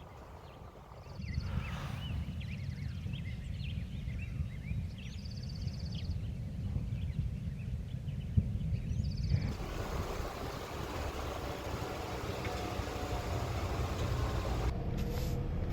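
Outdoor ambient noise: a steady low rumble with scattered short high chirps and trills in the first half. About ten seconds in, it changes to a fuller, steady rushing noise.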